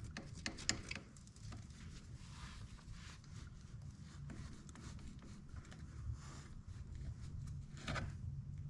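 Small metal parts clicking and scraping as the ATV's forward/reverse selector shaft is worked by hand out of its housing: a few sharp clicks at the start, then light rubbing and scraping, over a faint steady low hum.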